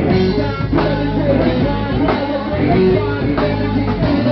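Live band playing, with electric guitar, a steady bass line and a drum kit keeping a regular beat.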